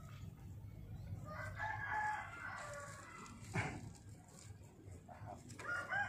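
A rooster crowing in the background, one long call about a second in and another starting near the end, with a short knock about halfway.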